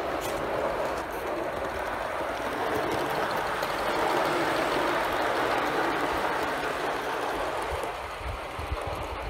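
Barrett Gauge 1 live-steam J65 tank locomotive running with its train of wagons on the garden track: a steady rolling and running noise of small wheels on rail, with steam from the engine.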